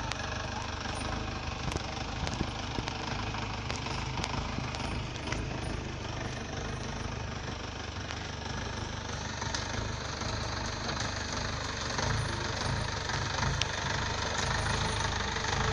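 A 4x4 jeep's engine running as it climbs a steep, rutted dirt track, growing louder over the last few seconds as the vehicle comes close.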